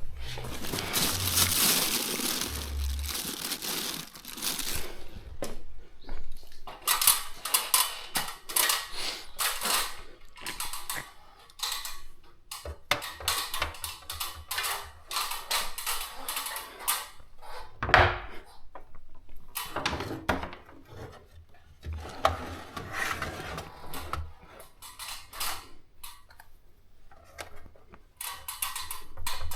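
Irregular clicking, knocking and scraping of small hard objects being handled, with one louder knock about halfway through.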